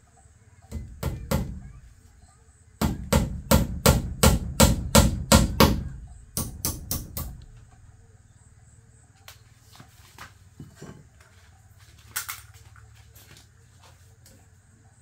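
Rapid hammer blows: a few strikes, then a steady run of about a dozen at roughly three a second, then a short run of four, with a few faint taps near the end.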